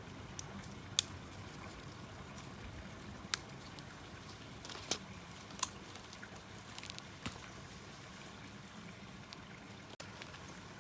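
Small wood fire burning in a compact wood stove: a steady crackling hiss with a handful of sharp pops of burning wood, the loudest about a second in.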